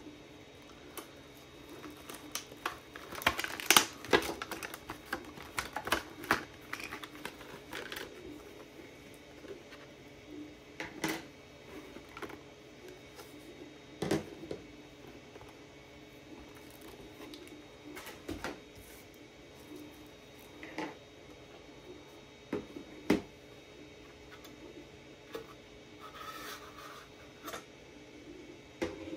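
Clear plastic packaging being handled and opened, with small hardware parts set down on a table: irregular clicks, crinkles and light knocks, a quick flurry in the first few seconds, then single knocks every few seconds and a short crackle near the end. A faint steady hum lies underneath.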